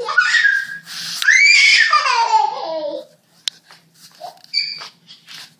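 A toddler squealing and shrieking with excitement. There is a short squeal, then a long shriek that falls in pitch, then a few short squeaks near the end.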